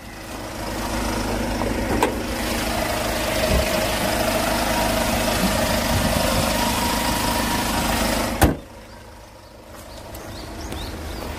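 Hyundai Grand Starex van's engine idling steadily with the hood open. About eight seconds in, a single sharp bang as the hood is shut, after which the engine is muffled and much quieter.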